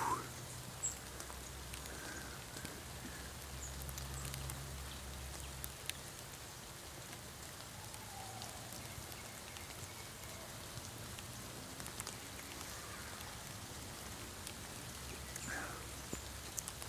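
Steady rain falling, with scattered sharp drips of single raindrops.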